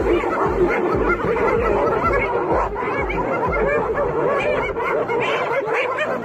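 A pack of spotted hyenas giggling, a dense overlapping chorus of short rising-and-falling cackles, as they mob a lioness.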